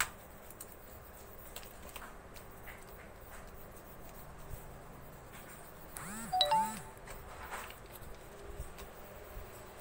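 Faint scratching of a coloured pencil shading on paper. About six seconds in, a brief two-note sound with arching tones, the loudest thing here.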